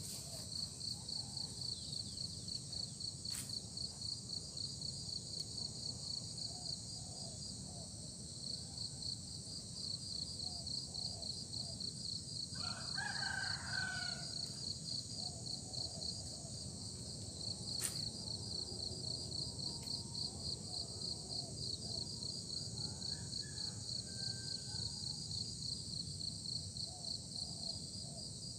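Insects chirring steadily in a fast, high-pitched pulse, with a rooster crowing once about halfway through and a fainter call later on.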